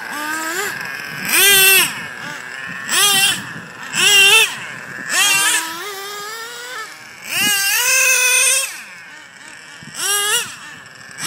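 Small two-stroke nitro glow engines of Traxxas Jato RC trucks (a modded TRX 3.3 and an O.S. Speed .12 TZ) revving hard in about six short, high-pitched bursts. Each burst rises then falls in pitch as the throttle opens and closes, with a longer one about eight seconds in.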